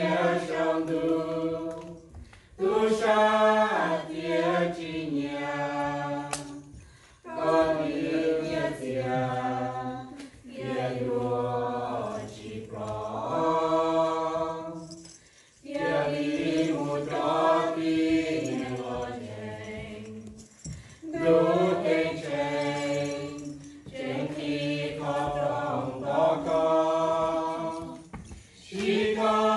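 A small mixed group of men's and women's voices singing together unaccompanied, in phrases of a few seconds with short pauses between them.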